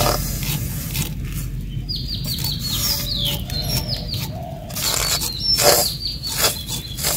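Small birds chirping in quick runs of short, falling notes, with several short scrapes of a steel spoon spreading batter across an iron wok; the loudest scrape comes just before the end.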